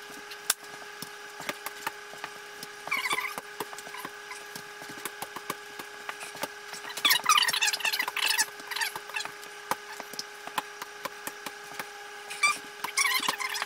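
Stipple brush on a pole being pressed into and pulled off wet joint compound on a ceiling: sticky crackling squelches three times, with many light ticking taps in between, over a steady faint hum.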